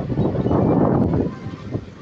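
Wind buffeting the microphone, swelling in a gust through the first second, over the low rumble of a river cruise ship's engines running as it manoeuvres close by.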